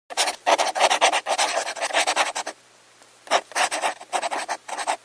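A person coughing over and over in two fits, a rapid run of coughs, a short pause about two and a half seconds in, then another run.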